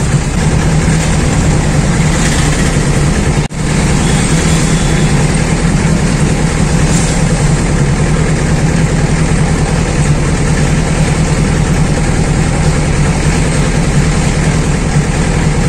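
An engine running steadily with a low, even hum, cutting out for an instant about three and a half seconds in.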